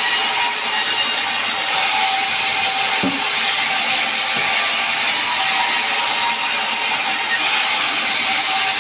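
Sawmill saw running steadily through pine timber: a continuous rasping noise with a faint steady tone under it.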